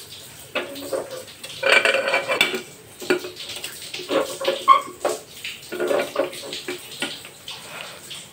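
Aluminium cooking pot and its lid clattering against the gas stove's burner grate, in several bouts of knocks with brief metallic ringing.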